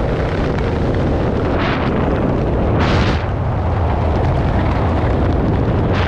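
Wind buffeting the camera microphone during a tandem parachute descent, a steady loud rumble with two short rushing swells about one and a half and three seconds in.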